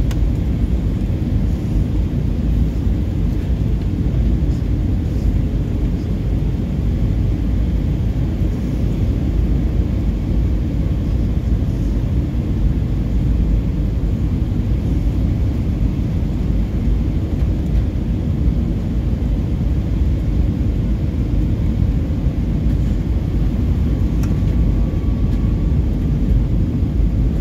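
Airbus A319 cabin noise on approach: a steady low rumble of the jet engines and airflow over the fuselage, heard from a window seat beside the wing.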